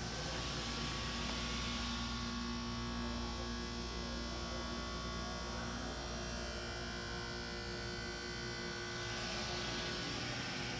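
Steady electrical hum and whine inside a ThyssenKrupp elevator car, several steady tones over a hiss of air, coming in abruptly at the start. The hiss thins through the middle and grows again near the end.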